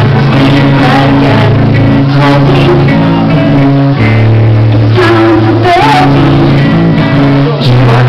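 Live rock band playing loud: electric guitars, bass guitar and drums, with a woman singing into the microphone.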